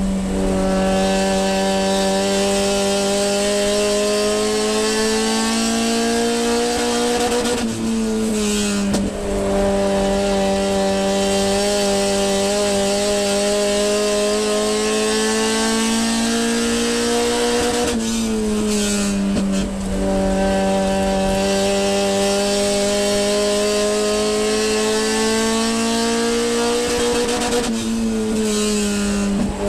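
Sport compact race car engine heard on board at sustained high revs. The pitch climbs slowly along each straight and dips sharply three times, about 8, 18 and 28 seconds in, as the driver lifts for the turns.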